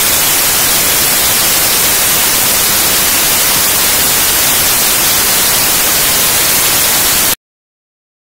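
Loud, steady static like white noise, a corruption glitch in the recording. It cuts off abruptly a little after seven seconds in to dead silence.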